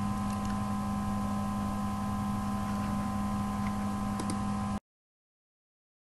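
Steady electrical hum with background hiss from the recording setup, a few fixed tones held without change; it cuts off abruptly to dead silence about five seconds in.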